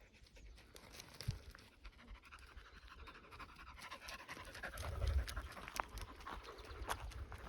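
Dog panting hard, out of breath from exertion, with a brief low rumble about five seconds in.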